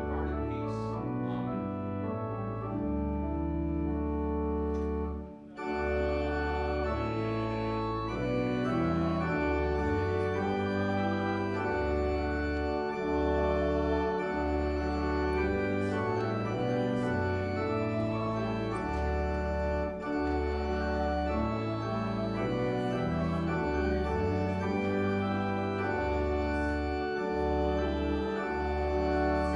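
Church organ playing a hymn in slow, held chords over a deep bass line, with a short break between phrases about five seconds in.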